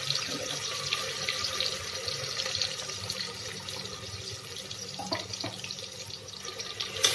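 Hot oil sizzling and crackling around ground masala paste just added to a pressure cooker, a steady fine spattering hiss. A couple of light knocks about five seconds in.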